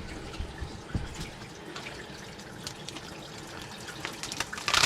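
Faucet with its aerator removed, running steadily to flush the line before a drinking-water test sample is taken, with a few small clicks and a brief loud handling noise near the end.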